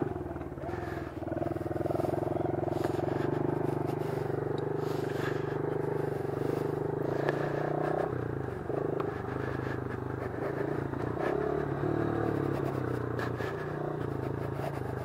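Honda CRF110F's small air-cooled single-cylinder four-stroke engine running at a steady, moderate pace with a 115 kg rider aboard, its pitch stepping up and down a little partway through.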